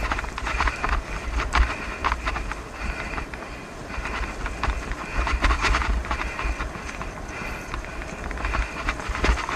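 Bicycle ridden fast over a rough, leaf-strewn dirt trail: tyres rolling and crackling over the ground and the bike rattling over bumps with irregular clicks, under a constant low rumble.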